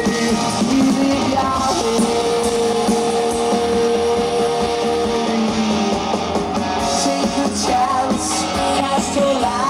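A rock band playing live: electric guitars and drums with cymbals, and a male lead singer singing, heard in a camcorder recording made from the audience.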